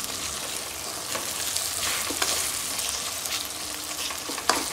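Onions and tomatoes sizzling in hot oil in a metal kadai while a metal spoon stirs them, scraping and clinking against the pan, with one sharp clink near the end.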